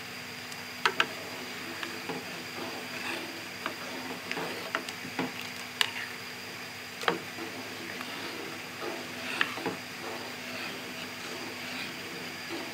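Wooden spoon stirring milk thickened with rice flour in a pot, with irregular sharp knocks as it strikes the pot's sides, over a steady low hum.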